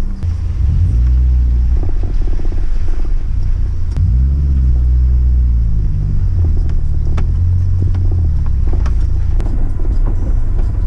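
Suzuki Jimny heard from inside the cabin while driving over a rough dirt track. A loud low rumble of engine and tyres, with the engine pitch rising and falling with the throttle, and occasional sharp knocks and rattles from the bumps.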